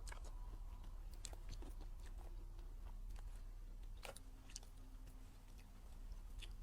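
Close-miked chewing and biting of a piece of a flower-shaped dessert, with scattered small crisp clicks and crackles, over a steady low hum.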